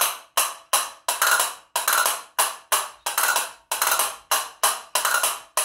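A pair of castanets played by hand in a jota aragonesa pattern: sharp, even clacks about three a second, mixed with short rolls.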